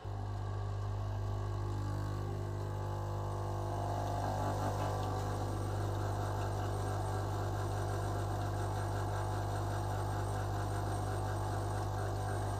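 Home espresso machine's pump humming steadily as it brews a shot into two mugs, starting sharply at the button press; the hum grows slightly fuller about four seconds in as the espresso flows.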